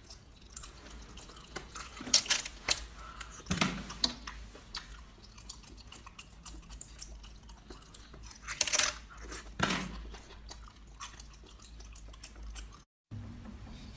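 Close-miked wet chewing and mouth smacks of someone eating seafood off skewers, with scattered sharp clicks and slurps. The louder ones come around two, four, and nine to ten seconds in.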